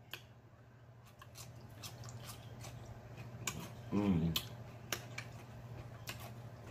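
Close-up mouth sounds of eating chicken wings: scattered wet smacks and chewing clicks, with a short hummed "mm" about four seconds in. A steady low hum runs underneath.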